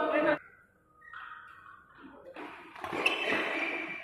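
Badminton rally on an indoor court: loud voices cut off suddenly just after the start, then short squeaks of court shoes and a sharp crack of a racket striking the shuttlecock about three seconds in.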